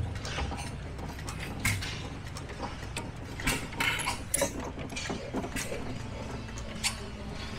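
Antique stationary gas engines running, with irregular sharp metallic clicks from their valve gear over a steady low rumble.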